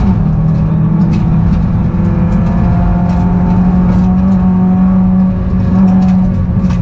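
Peugeot rally car's engine heard from inside the cabin, pulling hard at high revs; the note drops at the very start with a gear change, then holds fairly steady. Scattered sharp ticks sound over it.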